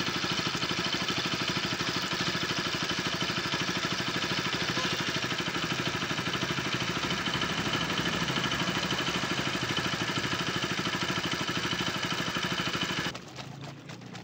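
Bajaj Pulsar RS 200's liquid-cooled single-cylinder engine running at a steady idle, run briefly so that the coolant is pushed out of the opened drain. The engine sound stops abruptly near the end.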